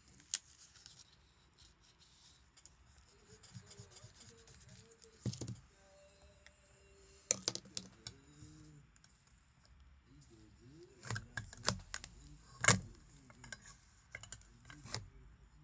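Handling noise from drawing on a spiral-bound sketchbook: irregular taps, clicks and paper rustling, with a few sharper knocks, the loudest late on.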